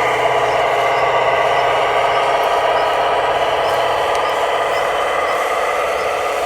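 Steady whine of a radio-controlled model construction machine's electric motor and gearing, running continuously.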